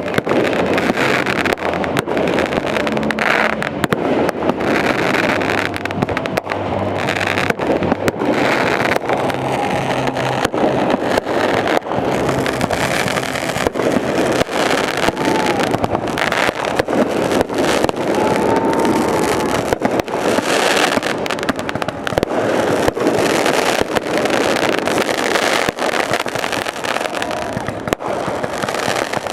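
Fireworks show: a rapid, nearly continuous run of bangs and crackling bursts.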